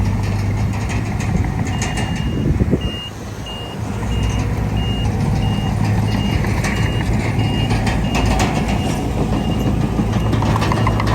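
A reversing alarm beeping about twice a second, a single high tone, over a heavy engine running steadily. The beeping starts about two seconds in and stops near the end.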